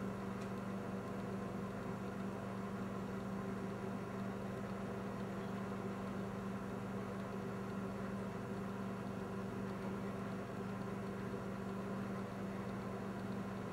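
A steady low electrical-mechanical hum with a constant low pitch, unchanging throughout, with no separate knocks or clicks.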